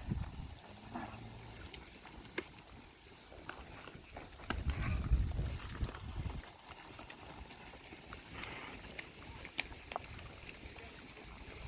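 Livestock on the move: scattered hoof steps and knocks, with a louder low rumble for about two seconds midway.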